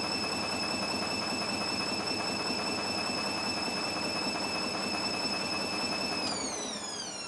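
Gorenje front-loading washing machine in its final spin: the drum motor gives a steady high whine over the rush of the spinning drum. About six seconds in, the whine starts falling in pitch as the spin ends and the drum slows down.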